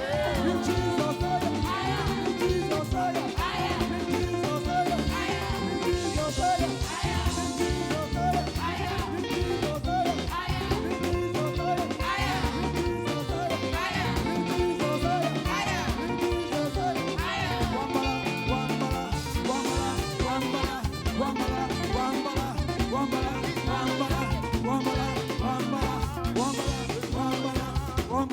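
A live band playing an upbeat African gospel praise groove with a steady beat and bass, between sung lines.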